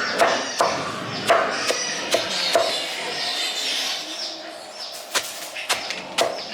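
Repeated sharp knocks, roughly two or three a second, with a short pause a little past the middle before they resume.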